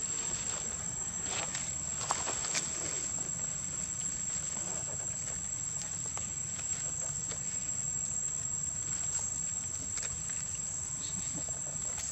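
Steady, high-pitched drone of insects, with a few faint scratches and clicks from monkeys picking through dirt and dry leaves.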